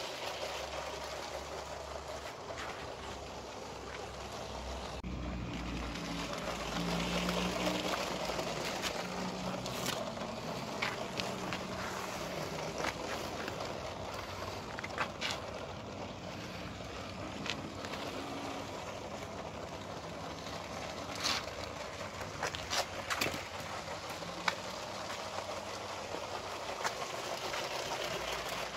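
Lego Powered Up train motor whirring steadily as the plastic passenger train runs along plastic Lego track, with scattered sharp clicks from the wheels crossing the track joints. The hum grows louder around six to eight seconds in as the train passes close by.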